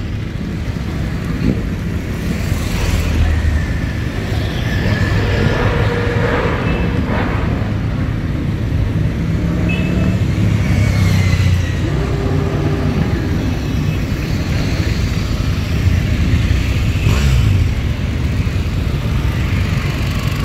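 A procession of motorcycles riding slowly past one after another, their engines running in a continuous low drone, with the pitch rising and falling as individual bikes go by.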